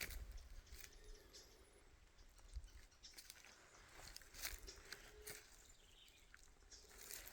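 Faint forest quiet with a few soft, scattered footsteps crunching on the trail underfoot.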